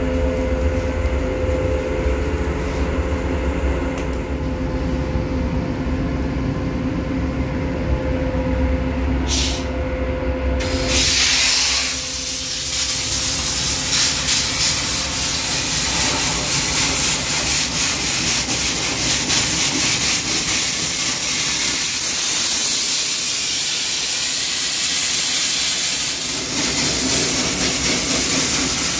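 Abrasive sandblasting. A steady machine hum with a low drone for about the first ten seconds, then about eleven seconds in a loud, even hiss of the blast nozzle takes over and runs on steadily.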